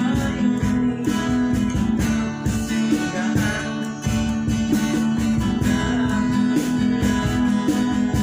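Acoustic guitars strumming and picking a pop song over a steady cajon beat, with little or no singing: an instrumental passage.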